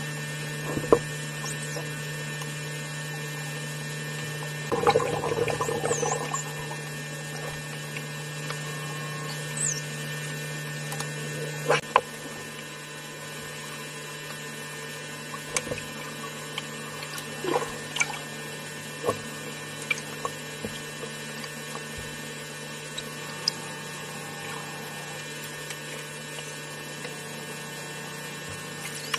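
Underwater sound with bottlenose dolphins: a steady low hum with scattered sharp clicks, a short noisy burst about five seconds in, and a few faint short high gliding whistles.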